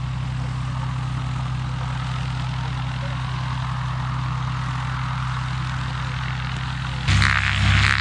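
Cessna 182A's six-cylinder piston engine and propeller running steadily, with an even, low-pitched drone. About seven seconds in, it abruptly gets much louder and harsher.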